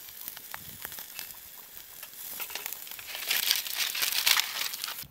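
Aluminium foil crinkling as it is handled and folded up in the hands, with scattered crackles that swell into a loud stretch of crinkling about three to four and a half seconds in.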